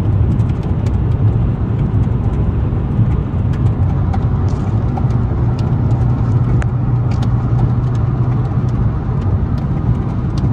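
Car cabin road noise while driving: a steady low rumble of tyres and engine with an even hum, and a few faint ticks.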